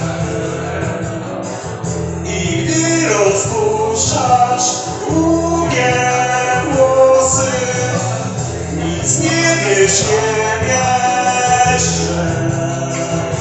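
A man singing through a microphone over an amplified backing track, in three long phrases with short breaks between.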